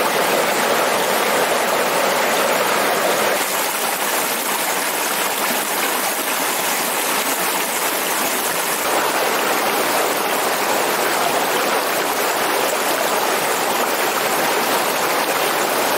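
Shallow rocky river rushing steadily over boulders and stones, a continuous hiss and splash of white water.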